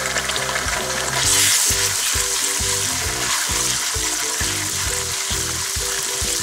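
Chopped onions with ginger and garlic paste sizzling in hot oil in a wok, stirred with a wooden spoon in the second half. The sizzle swells about a second in. Background music with short, stepping notes plays throughout.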